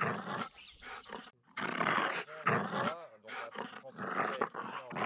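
A dog vocalizing in a series of rough, growl-like bursts, with a few short pitched sounds sliding up and down.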